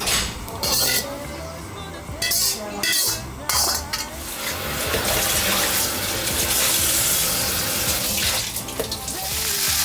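A metal spatula scraping and clinking against a plate a few times as stir-fried beef is served. Then a steady hiss of water in a large stainless stockpot as dumplings are put in.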